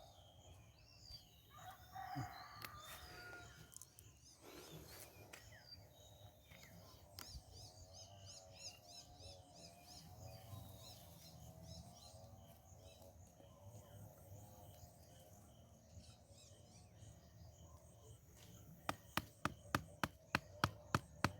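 Faint birds chirping and a rooster crowing in the background. Near the end, a run of sharp, evenly spaced knocks starts, about two or three a second, like a tool striking the ground.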